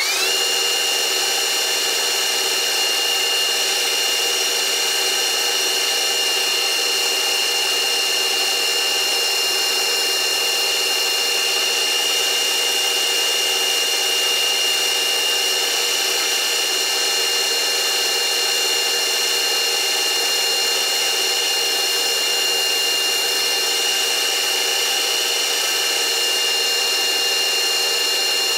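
Metal lathe running at steady speed while turning down a urethane wheel, its motor and gear train giving a steady high-pitched whine.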